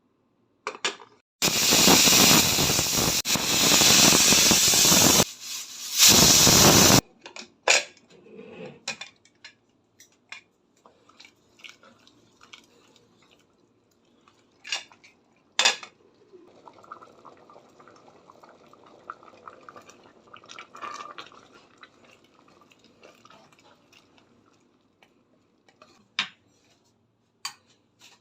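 A loud rushing hiss for about four seconds, cut off, then again briefly, followed by scattered clinks of a metal utensil against a pot and a stretch of soft scraping as the pot's contents are stirred.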